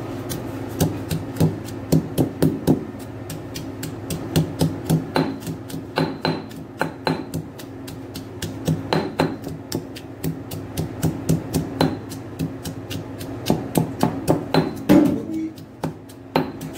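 Stone pestle pounding shallots and red chillies in a granite mortar: repeated dull knocks of stone on stone through the soft ingredients, about three to four strikes a second in runs with short pauses.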